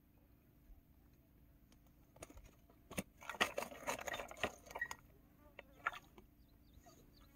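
Handling noise as a freshly caught fish is worked off the hook by hand over a nylon net: a cluster of quick clicks, taps and crackles from about two to five seconds in, then a few scattered taps.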